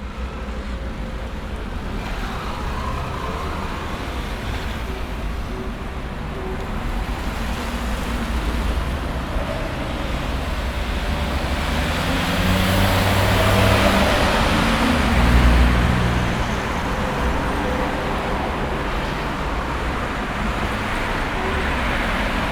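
Steady road-traffic noise with vehicle engines running, swelling as a vehicle passes about two thirds of the way through.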